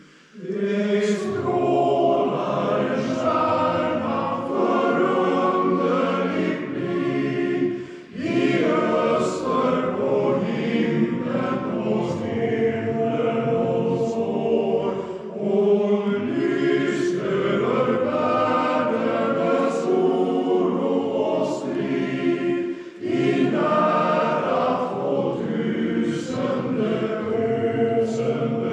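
Men's choir singing in parts, the phrases broken by short pauses for breath about every seven to eight seconds.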